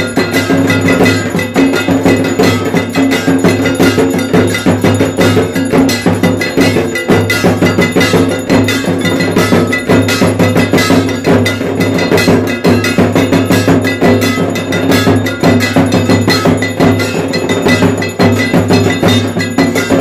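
Bells and metal percussion struck rapidly and without pause, a loud continuous clanging and ringing of the kind that accompanies a Hindu arati.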